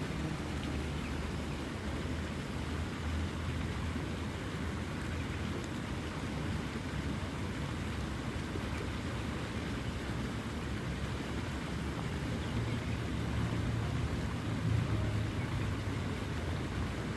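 Waterfall rushing steadily, an unbroken noise that is heaviest in the low range and swells slightly in the second half.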